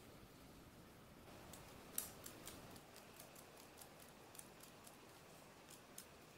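Scissors cutting strips from a sheet of foam: faint, scattered crisp snips, the clearest about two seconds in.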